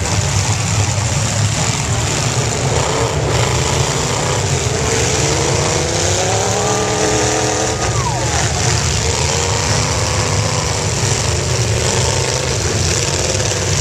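Demolition derby car engines running under a steady rumble. About five seconds in, one engine revs up, holds high for a second or so, then drops back.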